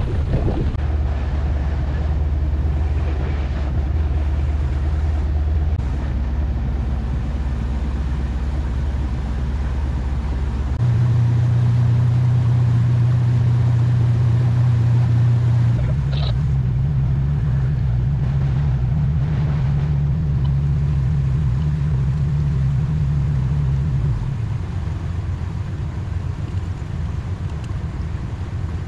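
Towboat's engine running steadily under load while towing a disabled boat on a tow line. The engine note steps up and gets louder about eleven seconds in, then drops back and quieter near the end as the boat slows. Wind and water rush sit underneath.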